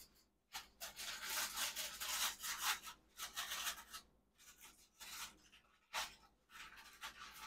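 Aluminium foil packet being unfolded and pulled open, crinkling in short irregular bursts.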